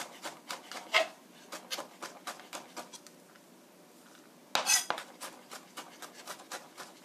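Chef's knife rapidly mincing garlic on a cutting board, a quick run of even taps of the blade on the board. After a short pause there is a brief scrape about four and a half seconds in, then the chopping resumes.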